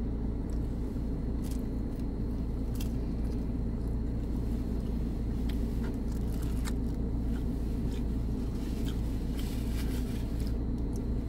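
Steady low hum of a car cabin, likely the car idling, with faint chewing and mouth clicks from someone eating pizza. A soft rustle near the end as a napkin is wiped across the mouth.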